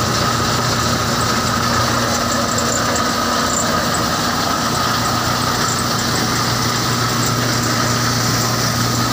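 Tractor-driven threshing machine running steadily: a continuous mechanical drone of the tractor engine with the whir of the thresher's drum, pulleys and V-belts, and a faint steady high whine over it.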